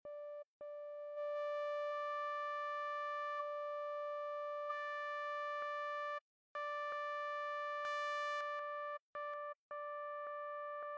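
Xfer Serum software synth sounding a single sawtooth note at one pitch, held for seconds at a time and retriggered about five times, with a click at each start. The upper harmonics swell and fade as the filter is adjusted. This is the raw oscillator that a hardstyle screech is built from.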